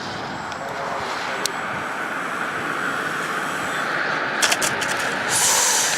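Radio-controlled model airplane's motor and propeller, a steady drone in flight. A few sharp clicks about four and a half seconds in, and a short burst of hiss near the end.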